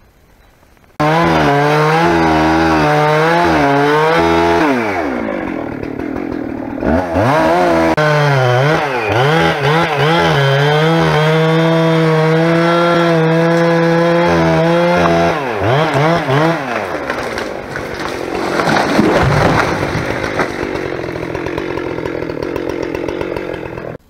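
A dull gas chainsaw cutting at full throttle. It starts suddenly about a second in, its pitch sagging and recovering as the chain bogs in the wood, with two brief drops in revs. Toward the end it sounds rougher and noisier, then stops abruptly.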